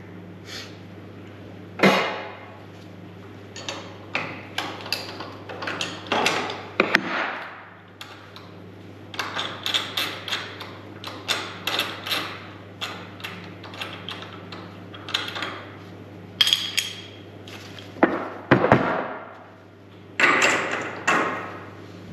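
Irregular metal clanks and knocks of tools and workpieces being handled and tapped in a machine shop, some sharp and loud, over a steady low machine hum.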